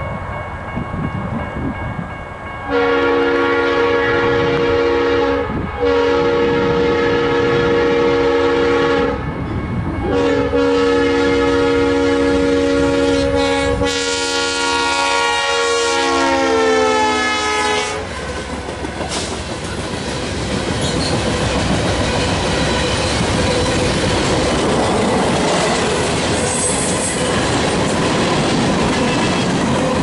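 BNSF freight locomotive's multi-chime air horn blowing a series of long blasts as the train approaches, the chord dropping in pitch as the locomotives pass. Then the freight cars roll by, their wheels clacking and rumbling over the rail joints.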